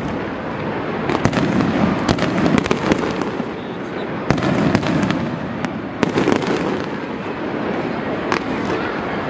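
Aerial fireworks going off: irregular sharp bangs of bursting shells over a steady dense crackle, the loudest bangs a little under halfway through and again around two-thirds of the way.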